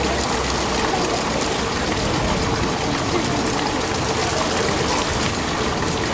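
Steady rushing of running water, an even hiss with no breaks, with faint voices of people under it.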